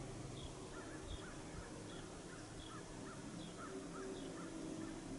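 Faint outdoor ambience with distant birds calling: a short high note repeats about every two-thirds of a second, joined in the middle by a lower, quicker series of calls.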